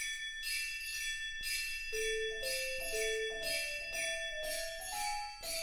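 Christmas intro music: sleigh bells shaken in a steady beat, about two shakes a second, joined about two seconds in by a bell-toned melody stepping up note by note.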